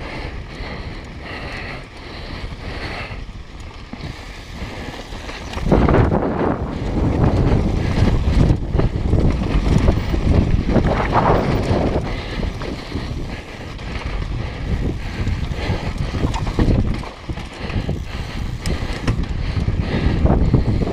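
Wind noise on a helmet-mounted action camera's microphone, with a downhill mountain bike's tyres rolling over a dirt trail. About six seconds in it becomes a louder, rough rumble as the tyres run over loose gravel and rock.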